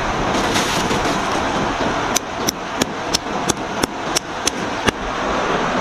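A small hand stone knocking on a flat river rock as it pounds spices into a paste: about nine sharp strikes, roughly three a second, starting about two seconds in. Under it runs the steady rush of flowing river water.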